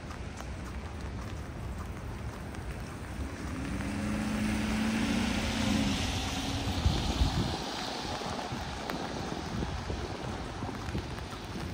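A vehicle driving past on a wet street: tyre hiss and engine hum swell to a peak about six to seven seconds in, with a brief thump at the peak, then fade back into steady street noise.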